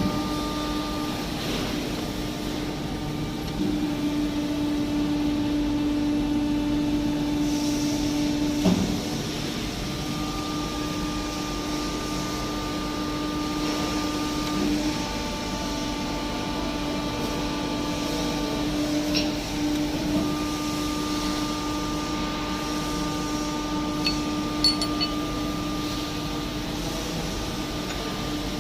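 CNC bending machine running: a steady hum with higher whining tones that start and stop for several seconds at a time as it moves, and a knock about nine seconds in, with a few clicks near the end.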